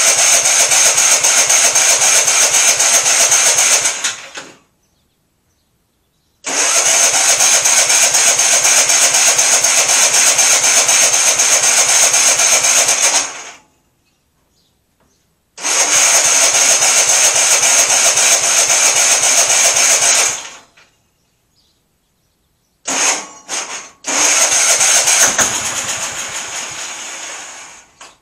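MTD lawn tractor engine being cranked by its electric starter in four long tries with short pauses between them, the last preceded by two brief blips. It turns over but does not catch: it is getting fuel to the carburetor after a fuel-filter change, and the owner suspects the carburetor.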